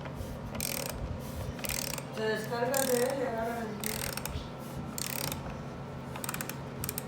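3/8-inch Pittsburgh hand ratchet clicking in short bursts, about four of them, as it drives a fastener while tightening a loose chair. A voice is heard briefly in the middle.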